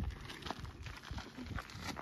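A hiker's footsteps on a desert dirt trail, a few scuffing steps at an uneven pace.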